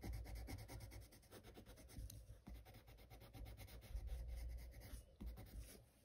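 Faint scratching of a colored pencil on sketchbook paper in quick, repeated strokes as a yellow edge is shaded around a tulip, stopping near the end.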